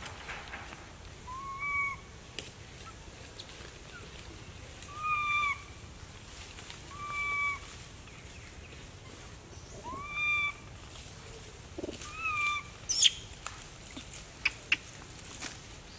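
An animal's short, clear call repeated about every two to three seconds, each call rising and then levelling off. Near the end there is a loud sharp click followed by a few smaller clicks.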